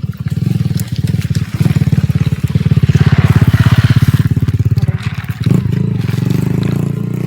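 An engine running nearby with a fast, regular putter. It is loudest through the middle and cuts off suddenly at the end.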